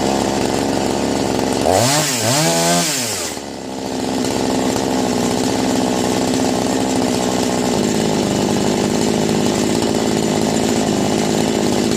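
Chinese clone two-stroke chainsaw engine running while its carburettor is adjusted. About two seconds in it revs up and back down twice, dips briefly, then settles into a steady idle, which sounds clean and even: the idle is now running a lot better.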